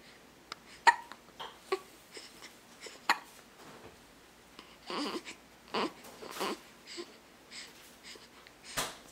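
A baby hiccuping: short sharp hiccups a second or so apart, then a few longer breathy sounds in the middle, and one more sharp hiccup near the end.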